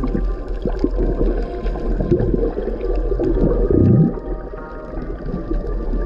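Muffled underwater sound from a submerged camera: water churning and gurgling as a freediver swims, with a low sound sliding down in pitch about four seconds in.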